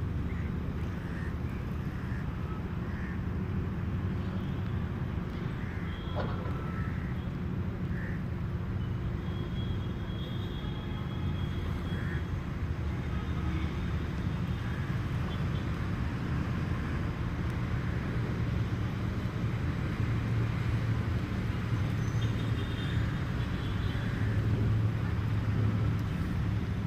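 Steady low engine drone, growing louder in the last few seconds, with scattered short bird calls over it.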